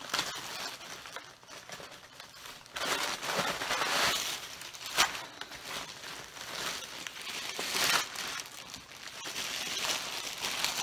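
Clear plastic packaging bag crinkling and rustling as it is handled, quieter at first and busier from about three seconds in, with a sharp crackle near five seconds.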